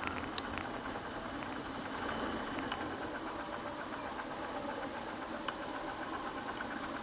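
Motorcycle engine running steadily while riding, with a few sharp ticks.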